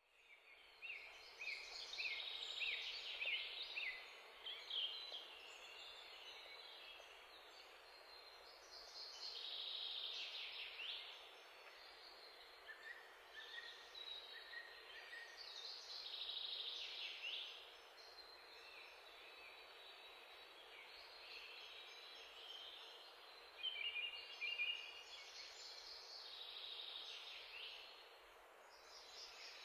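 Small birds chirping in bouts of quick, high calls every several seconds, over a steady faint hiss.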